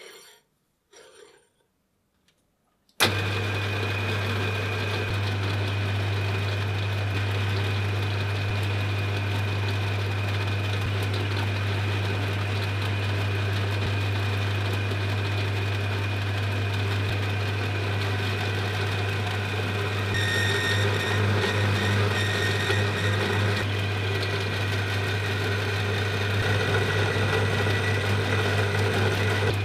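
An electric workshop machine switches on suddenly about three seconds in and runs steadily with a strong deep hum. Its sound changes a little from about twenty seconds in.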